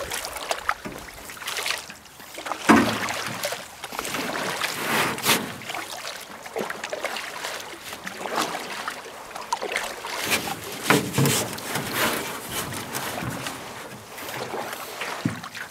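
A paddle stroking through lake water at an uneven pace, each stroke a splash followed by dripping and trickling water.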